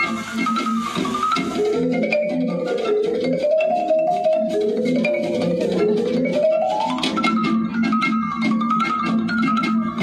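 Instrumental music for a musical fountain show: a melody of quick, rippling notes that climbs and falls in repeated arcs over a steady lower accompaniment.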